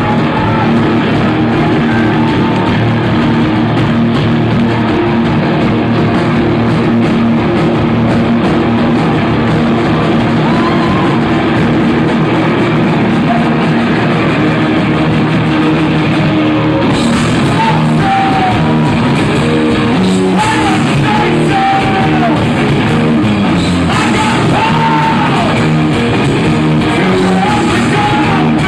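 A rock band playing loud, amplified music live, recorded from the audience. The sound turns sharply brighter about halfway through.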